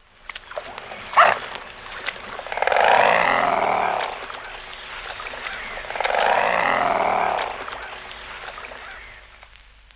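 Mute swan growling at close range: two long growls a few seconds apart. Small crackles are scattered throughout, with a sharp crack about a second in, the loudest sound.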